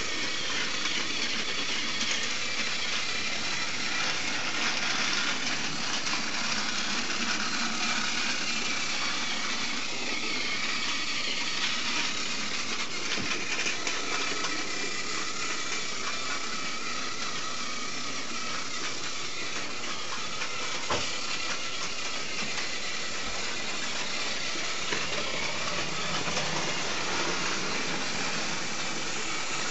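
Plarail Henry battery-powered toy train running along plastic track: the steady whirr of its small motor and gearbox and its plastic wheels on the rails.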